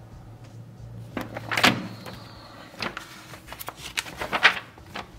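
Pages of a glossy paper flyer being turned and folded by hand: several rustling, crinkling sweeps, loudest about a second and a half in and again near four and a half seconds.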